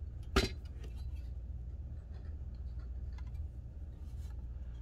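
A single sharp, light metallic clink about half a second in, followed by a few faint ticks as the hard drive enclosure's metal parts are handled, over a steady low hum.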